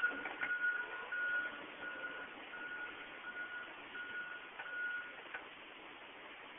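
Truck's reversing alarm beeping, one steady pitch repeated evenly, stopping about five seconds in.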